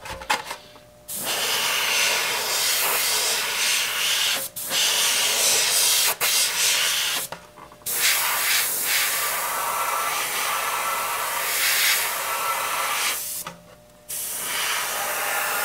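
Airbrush blowing long hissing bursts of air and paint, broken by several brief pauses as the trigger is let off, while it is worked to clear a nozzle clogged with dried paint.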